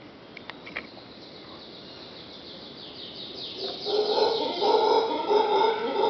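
Mantled howler monkeys begin roaring about four seconds in, a loud, pulsing chorus that keeps going. Before that the forest is quiet apart from a fast run of high, descending chirps.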